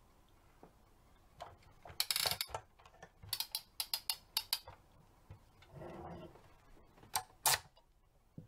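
Plastic toy recycling truck being handled, its hard plastic parts clicking and clattering: a quick run of clicks about two seconds in, a string of separate clicks a second later, and two sharp clicks near the end.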